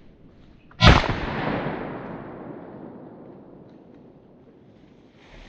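A single shot from a Browning Maxus 2 12-gauge semi-automatic shotgun about a second in, its echo trailing off over a couple of seconds.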